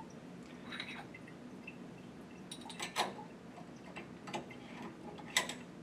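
Light metallic clicks and taps, several spaced a second or so apart, the loudest about halfway through and again near the end, as a metal retaining nut is fitted and hand-threaded onto a shower valve cartridge.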